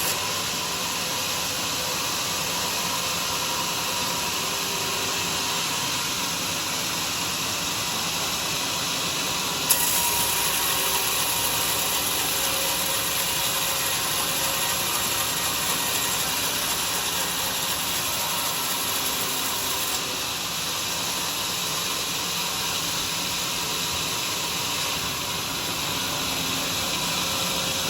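Homemade sawmill running steadily with its saw cutting durian wood, a dense even mechanical noise; it gets louder suddenly about ten seconds in and drops back about twenty seconds in.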